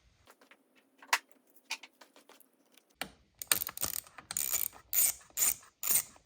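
Sharp metallic clicks and clinks of hand tools and bolts as the idle air control valve's bracket bolts are started and driven back in: a couple of single clicks, then from about halfway a quick run of repeated clicks.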